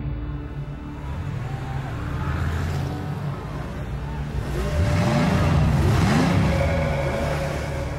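Car engines running with a low rumble, then revving in two rising sweeps about five seconds in, the loudest part.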